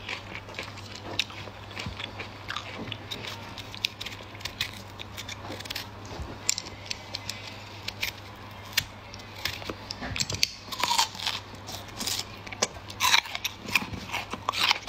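Crisp peach being crunched: a knife cutting through the firm fruit and the fruit chewed, with many short, crisp cracks and clicks throughout over a faint steady low hum.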